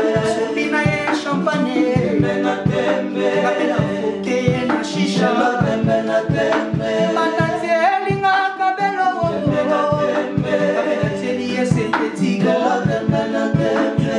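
Male voices singing together in close harmony in Congolese rumba style, over a steady beat.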